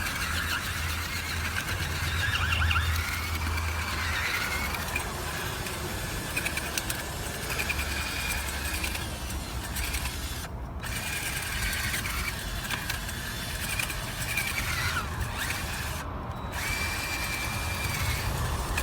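Power drill turning a garden auger bit, the motor running with a high, wavering whine that cuts out briefly twice.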